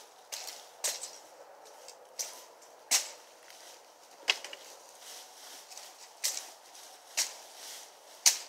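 Machete chopping at brush and vines: about seven sharp whacks at uneven intervals, roughly one a second, the loudest about three seconds in.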